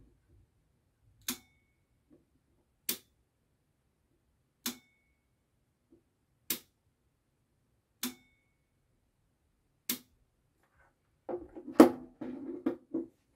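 Push button and 24 V DC 11-pin relay clicking as the relay is switched on and off: six sharp clicks about every 1.7 s, every other one with a brief metallic ring. Near the end, a clatter of the push button and its contact block being put down on the desk, with one loud knock.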